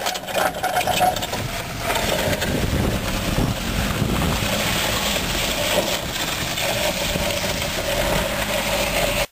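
Small caster wheels under a homemade pontoon boat rattling and rumbling over asphalt as it is towed slowly by a Volvo 240 sedan, with the car's engine running at low speed underneath.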